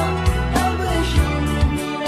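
Music with a melody of held notes over low drum hits.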